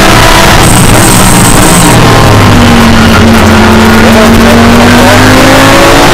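Audi R8 LMS GT3 race car's V10 engine heard very loud from inside the cockpit. The engine note breaks up as the car brakes for a corner about half a second in, then rises steadily as it accelerates out from about two and a half seconds.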